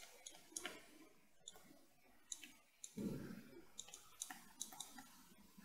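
Faint, irregular clicks of a stylus tapping a pen tablet while words are handwritten, with near silence between them.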